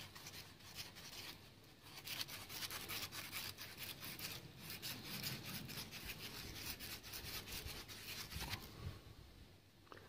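Copper refrigeration tubing being rubbed clean with a strip of abrasive cloth: a fast run of scratchy strokes, light at first, then dense from about two seconds in until near nine seconds, cleaning the tube end ready for silver brazing.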